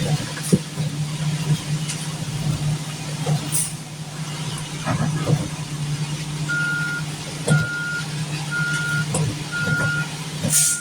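Concrete mixer truck engine running steadily. About two-thirds of the way in, its reversing alarm starts beeping about once a second. Scattered knocks are heard, and a short hiss comes near the end.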